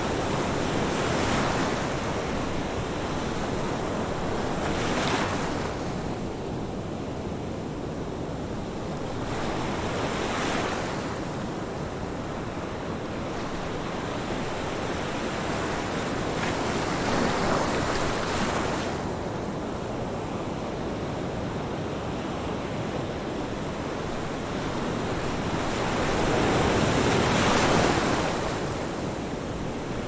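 Ocean surf: a continuous rush of water with waves surging and breaking about five times, the loudest near the end.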